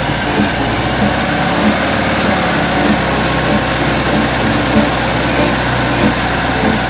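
Freshly rebuilt 1954 Volkswagen 36hp air-cooled flat-four engine running at a steady idle.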